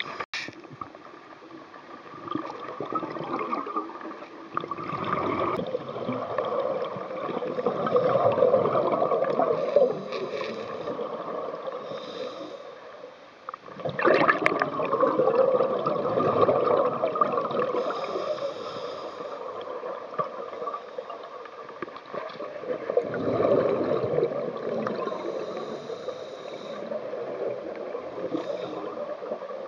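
Scuba breathing through a regulator underwater: exhaled bubbles gurgling in long swells about every nine seconds, with fainter inhalation hiss between them.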